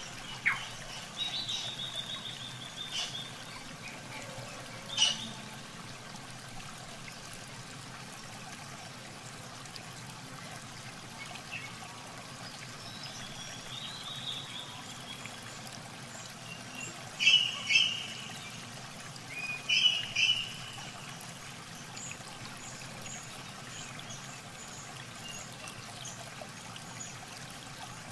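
Muddy water trickling and splashing as a fishing net is worked through a shallow pool, with a few sharp splashes in the first seconds. Birds chirp now and then, loudest in two short bursts a little past halfway, then a run of brief high chirps.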